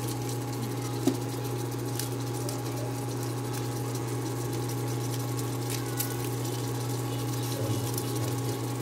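Steady electrical hum of an induction cooktop running under a pot of simmering spaghetti sauce, with a few faint pops and clicks; the sharpest comes about a second in.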